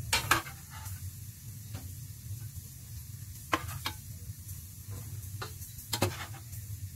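Green bell peppers sizzling gently in mustard oil on a low flame, over a low steady hum. A metal spoon clicks sharply against the pan several times as the peppers are turned and lifted out.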